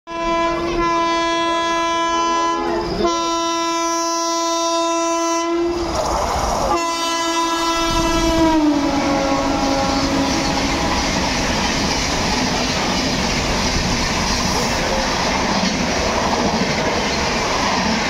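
Secunderabad Rajdhani Express passing at full speed: the locomotive's horn sounds in about four long blasts, its pitch dropping as the locomotive goes by about eight seconds in. Then comes the steady rush and wheel clatter of the coaches passing.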